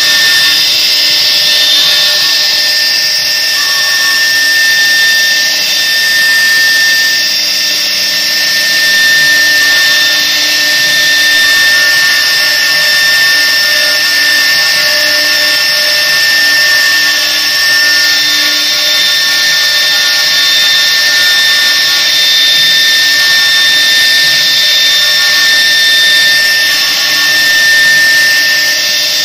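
Two spindles of a CNC router running at high speed and cutting, engraving a grooved fretwork border into a wooden board: a loud, steady high-pitched whine over the hiss of the bits in the wood.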